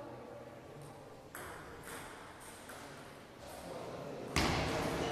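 Table tennis ball clicking off bats and table in a rally, about one stroke every half second. Near the end comes a sudden, much louder noise.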